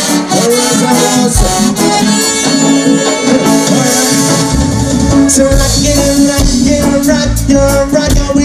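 Live band music played on electric guitars and congas through a PA, with deep bass notes entering about halfway through.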